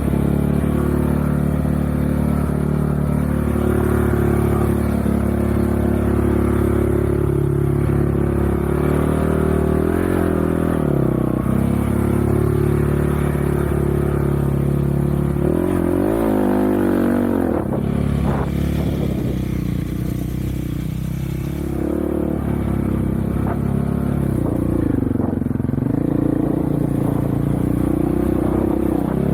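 Off-road vehicle engine running steadily while being ridden. Its pitch dips and climbs again a few times as the throttle is eased off and reopened: about a third of the way in, a little past the middle, and near the end.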